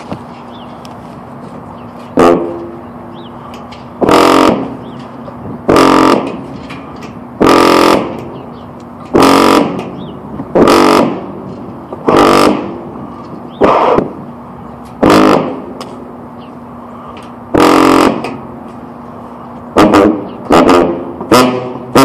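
Sousaphone playing about ten loud separate blasts, each with a hard attack that fades away, spaced one to two seconds apart, then a quick run of short tongued notes near the end.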